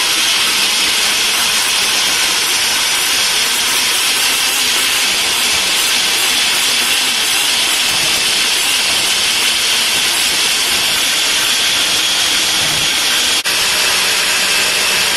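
NutriBullet blender motor running at full speed, chopping raw carrots, peppers and garlic down to a smooth purée. It makes a loud, steady whir that cuts out for an instant near the end, then picks up again.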